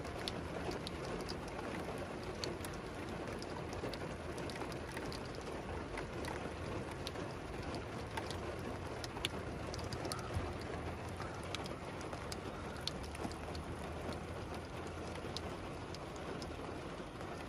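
Heavy rain falling steadily, heard through an open car window: an even hiss scattered with the sharp ticks of single drops striking nearby.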